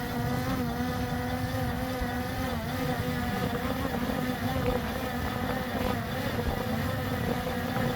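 DJI Mini 4 drone hovering, its propellers giving a steady buzzing hum that wavers slightly in pitch as the motors hold it against gusts, with wind rumbling on the microphone.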